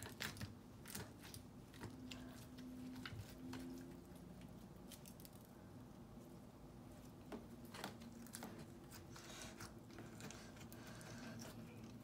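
Faint squishing and crackling of slime studded with star and heart confetti as it is kneaded and pressed between the fingers, with scattered small clicks and pops.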